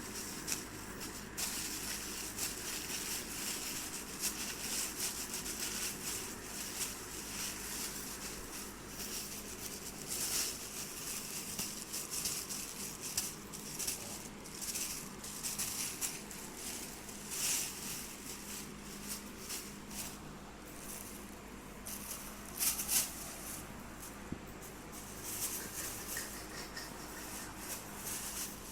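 Thin plastic crinkling and rustling in irregular crackly flurries as a young kitten paws and plays with it.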